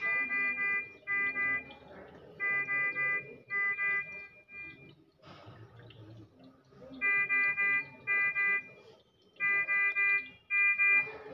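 Bedside medical monitor alarm sounding a multi-tone beep in a repeating pattern of three quick beeps then two, the high-priority alarm rhythm; it pauses for about two seconds midway, then resumes. A newborn cries faintly underneath.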